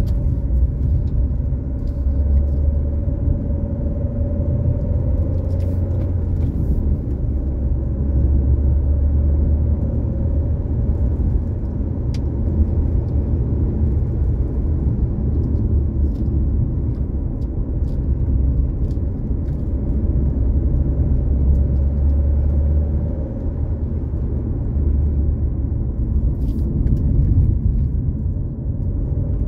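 A car's engine and tyre noise heard from inside the cabin while driving on a country road: a steady low rumble with a faint steady hum above it and a few light ticks.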